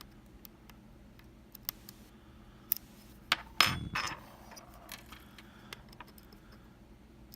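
Metal lock-picking tools clicking and scraping in a Kaba Quattro S dimple lock, with a few sharp clicks and a louder metallic rattle and scrape a little past the middle.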